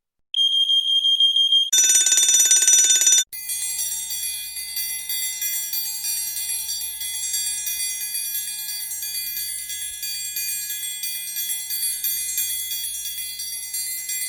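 Fire alarm sounds in succession: a steady high electronic tone for about a second and a half, then a louder, rapidly pulsing alarm buzz, which cuts off about three seconds in. An electric fire alarm bell then rings continuously, its hammer rattling rapidly on the gong.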